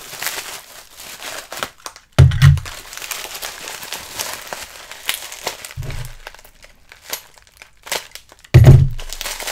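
Packing material crinkling and tearing as a toy car is unwrapped by hand, with three short, dull thumps, the loudest about two seconds in and near the end.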